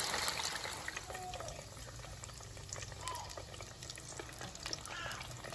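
Crinkle-cut French fries deep-frying in hot oil in a Presto Kitchen Kettle deep fryer: a steady sizzle full of small crackles.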